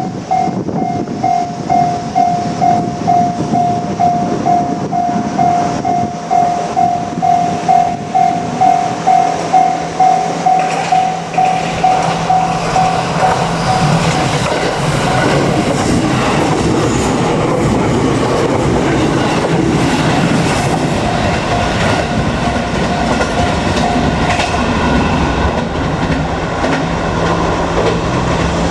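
Japanese level-crossing warning bell ringing at about two strikes a second. From about twelve seconds in, a JR Kyushu 787 series limited express train passes over the crossing with a loud, steady rush of running noise. The bell is no longer heard after about twenty-four seconds.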